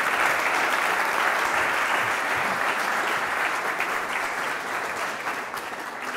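Audience applauding, the applause slowly fading away with separate claps showing through near the end.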